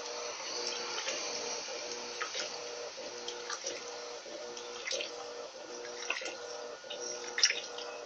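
Electrolux Turbo LT12B top-loading washing machine in its wash agitation with the tub filled to the high level: the motor hums in a steady pulsing rhythm while water sloshes and splashes around the clothes. There is one brief, sharper sound near the end.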